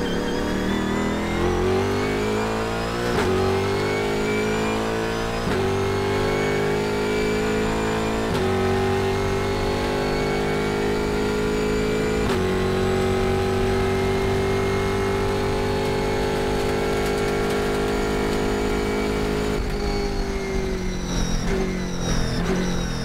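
Pratt & Miller Cadillac CTS-V-R race car engine heard from inside the cockpit, accelerating hard through four upshifts: the pitch climbs and drops back at each shift. It then holds high at top speed before falling away near the end as the car slows.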